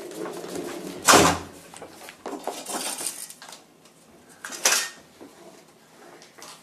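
A hard toy being handled and knocked about, clattering: two loud clatters, about a second in and near five seconds in, with lighter taps and rattles between.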